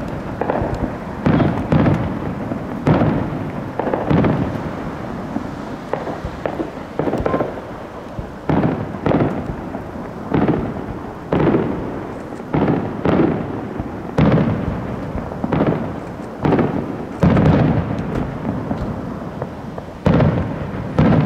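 Fireworks shells bursting in a rapid series, about one bang a second. Each bang trails off in a long echo.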